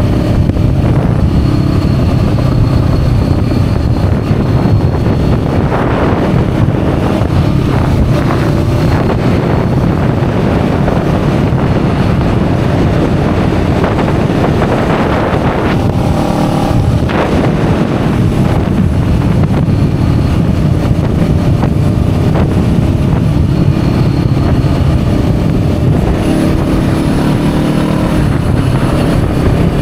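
A motorcycle under way on the road: a steady engine note mixed with wind rushing over the microphone, with a brief change in the engine note about halfway through.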